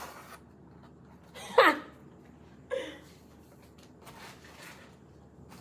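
Two short voice-like cries: a loud one about a second and a half in that slides down from high to low pitch, and a shorter, fainter one near three seconds, against quiet room tone.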